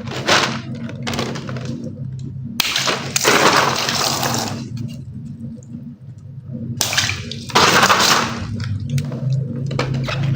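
Water balloons cut open and their water gushing out and splashing, twice, each rush lasting about two seconds.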